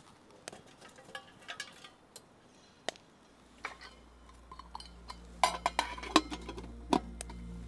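Metal camp pot and utensils clinking as the pot is handled on a wood-burning camp stove: a few light clicks at first, then a quick run of sharper clinks about five and a half to seven seconds in. Low background music fades in during the second half.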